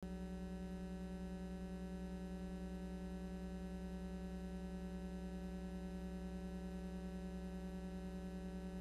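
Steady electrical mains hum and buzz on the soundtrack: a low hum with a stack of fainter higher tones above it, unchanging and slightly fluttering.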